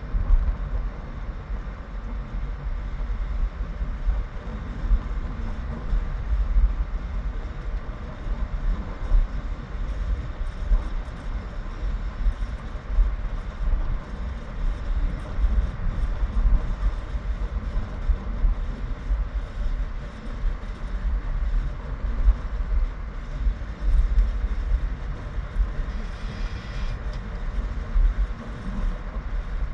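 Wind buffeting the microphone ahead of a hurricane: a loud, uneven low rumble that swells and dips without a break.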